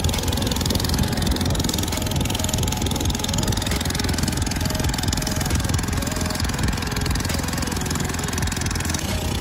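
Engine of a small wooden river boat running steadily under way, a continuous rapid pulsing drone that stays at one speed.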